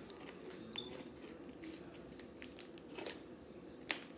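Freshly made foamy slime, still sticky, being squeezed and kneaded by hand, giving faint scattered crackles and little clicking pops, with one sharper pop near the end.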